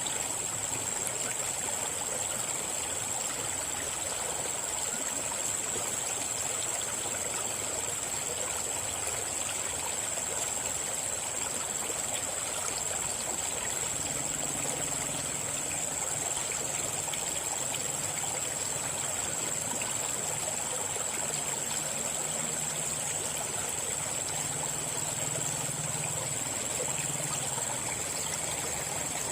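River water flowing steadily over rocks, a continuous rushing and trickling. A steady high-pitched tone runs under it, and a faint low hum comes in about halfway through.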